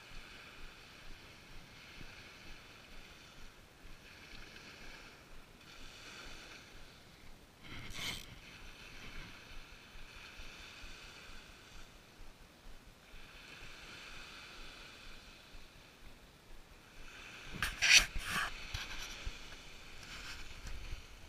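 Spinning reel being cranked to reel in surf-fishing line: a whir in stretches of a few seconds, with a regular pulse about twice a second. There is a sharp knock about eight seconds in and louder handling knocks near the end.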